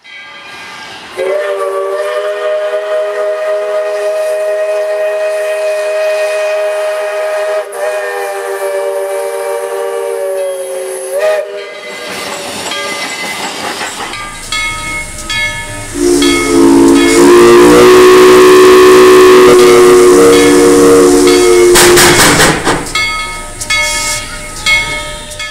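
Narrow-gauge steam locomotive whistle sounding two long blasts, each a chord of several tones. The first blast lasts about ten seconds. The second, lower in pitch, comes after a stretch of loud steam hiss and has hiss running under it.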